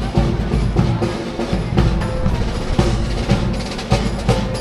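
Music with heavy drumming, bass drum thumps and snare rolls to the fore.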